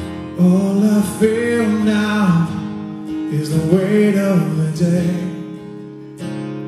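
A man singing two phrases over a strummed acoustic guitar, with a fresh strum of the guitar near the end.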